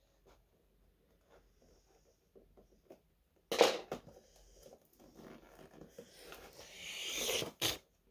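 Packaging being handled: faint small taps, then a sudden loud crackle about three and a half seconds in, followed by rustling and crinkling that builds toward the end and ends with a sharp click.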